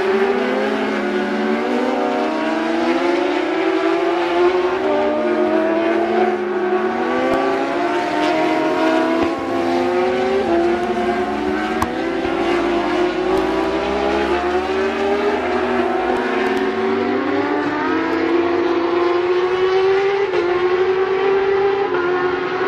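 Several superbike racing motorcycles running through the corners, their engine notes overlapping, climbing under acceleration and dropping at each gear change.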